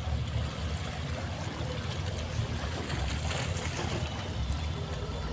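Small waves lapping and trickling against shoreline rocks over a steady low rumble.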